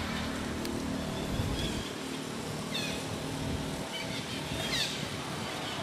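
Monkeys calling: short high-pitched squeaks that fall in pitch, one about three seconds in and another near five seconds, over a steady background hiss.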